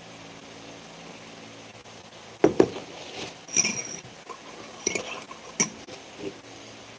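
Dishware clinking: a cup or mug knocked and set down, two sharp knocks and then about five lighter clinks over the next three seconds, some with a short glassy ring.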